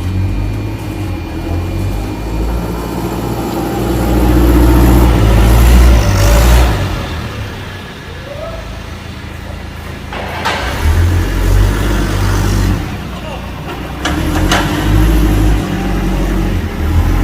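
Heavy machinery running with a loud low rumble that swells and eases in several surges, with voices in the background.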